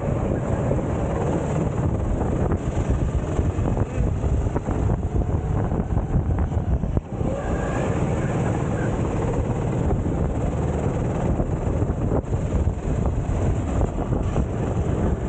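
Onboard sound of a racing go-kart at speed: its engine running continuously under wind buffeting on the camera microphone, with a brief drop in level about halfway through.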